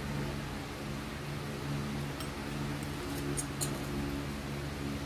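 Steady hum of an electric fan, with a few faint clicks of a fork against a bowl as a patty is turned in beaten egg.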